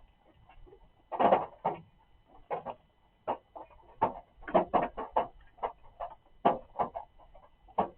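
Rain drops falling irregularly onto hollow objects, each drop a short drum-like knock, coming several a second in uneven clusters.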